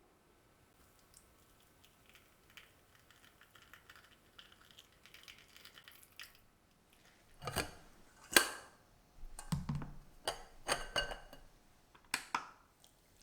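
Kitchen tools being handled: faint light ticking at first, then a run of sharp clicks and knocks, about ten of them, in the second half.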